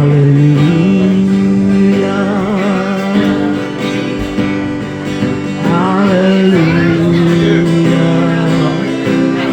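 Worship song music led by acoustic guitar, with long held chords that change every few seconds and a voice wavering briefly about six seconds in.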